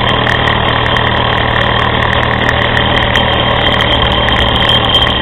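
Mamod SR1 live-steam model steam roller running under steam: a steady hiss of steam with the small engine's mechanical running noise, even and unbroken.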